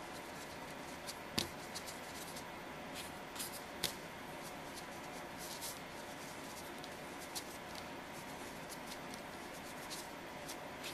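Faint rubbing and light taps of a fingertip working chalk pastel onto small polymer clay discs on a paper plate, with scattered small clicks, the sharpest about a second and a half and about four seconds in. A low steady hum sits underneath.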